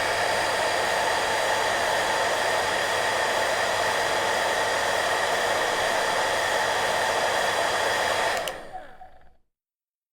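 Hair dryer running steadily, an even rush of air with a faint motor whine and low hum. About eight and a half seconds in it is clicked off and the motor spins down over about a second.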